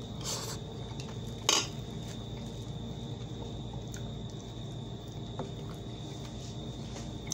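Crickets keep up a steady high-pitched chirring throughout. About a second and a half in, a sharp clink sounds as a metal fork is set down on the bowl, with a softer knock of cutlery just before it.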